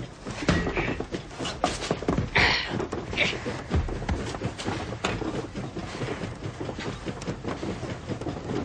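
Rattling and knocking of a railway goods wagon on a train, with a few short hissing bursts in the first few seconds.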